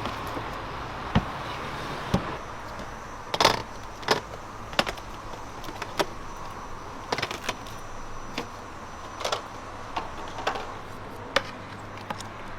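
Irregular sharp clicks and knocks, about a dozen and the loudest a few seconds in, over a steady low hum.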